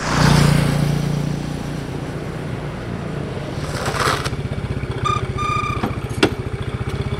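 Yamaha Ego scooter's single-cylinder engine running as it rides up and pulls to a stop, with a surge of noise as it passes close about four seconds in and two short high squeals as it stops. It then settles to an even idle.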